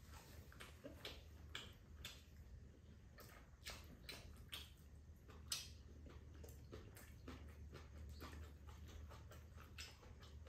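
Quiet mouth sounds of someone chewing food: irregular soft smacks and clicks, over a low steady hum.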